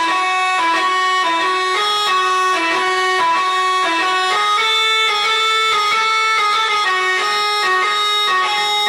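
Telolet bus horn, a set of multi-tone air horns playing a tune: several horn notes sound together and step up and down in pitch every half second or so, without a break.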